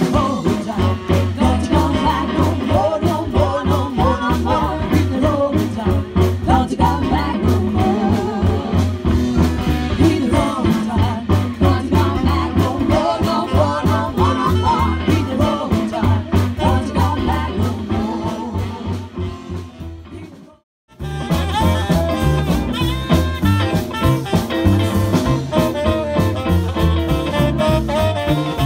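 Live band music: three women singing together, backed by upright bass. About 20 seconds in, the sound fades and cuts out briefly, then picks up as an instrumental with electric guitar, tenor saxophone and upright bass.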